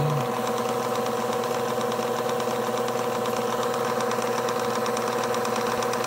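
Washing machine electric motor running freely with a steady hum, its shaft spinning at normal speed now that the tight shaft bushing has been freed.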